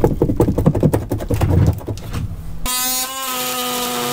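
Rotten wooden boat frame being wrenched loose by hand, a rapid run of irregular knocks and cracks. About two-thirds in, a cordless oscillating multi-tool starts abruptly and runs with a steady buzz against the frame.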